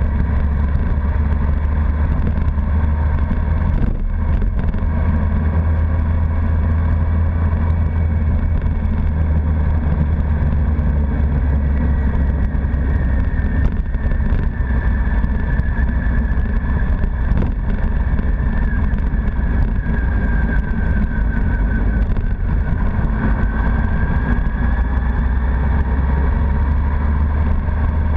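Honda CBR1100XX Blackbird's inline-four engine running steadily while riding, under a heavy continuous rumble of wind and road noise on the bike-mounted camera. A higher whine falls and rises again with engine speed past the middle.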